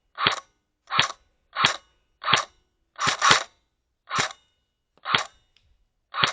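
Airsoft gun firing single shots on semi-auto, about nine sharp reports at irregular intervals of roughly half a second to a second, with two fired close together around the middle.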